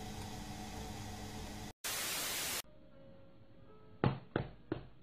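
A front-loading washing machine running with a steady hum, cut off by a short burst of static. About four seconds in comes a quick run of thumps, about three a second, as a cat bats at a stuffed toy tiger.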